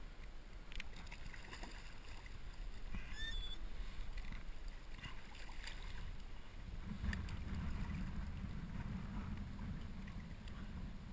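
Shallow surf water sloshing and lapping around a hooked striped bass as it is led in at the water's edge, with scattered small splashes and a few short high chirps about three seconds in. A low rumble grows louder about seven seconds in.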